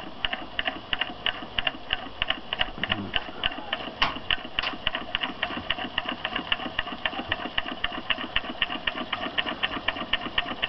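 Homemade walking-beam Stirling hot-air engine with a diaphragm running after being lit, making a fast, even clicking at about five or six clicks a second. Two sharper clicks come about four seconds in.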